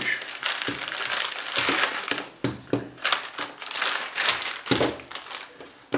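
Clear plastic bag crinkling as a chrome ratchet wrench, extension bar and socket are taken out, the metal pieces clinking together and knocking on the table in a string of sharp clicks.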